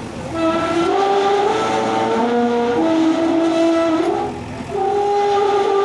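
Concrete electric pole scraping over the steel rear edge of a tractor trailer as it is slid off, squealing in long held tones that jump up and down in pitch. The squeal breaks off briefly about four seconds in, then starts again.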